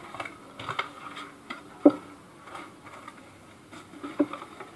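Phone retail box and its packaging being handled on a table: scattered light taps and clicks, the sharpest about two seconds in.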